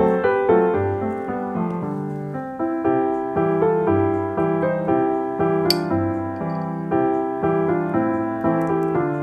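Background piano music, notes struck one after another throughout.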